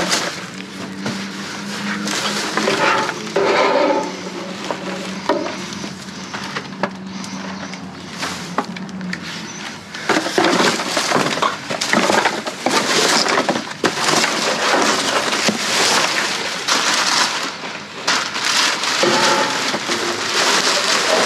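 Rummaging through trash: plastic bags and packaging crinkling and rustling, with many knocks and clatters of items being moved. A steady low hum sits under it for about the first nine seconds.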